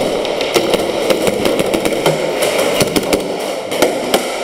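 Airsoft gunfire: a rapid, irregular stream of sharp snaps and cracks from guns firing and BBs striking, over a steady noisy background.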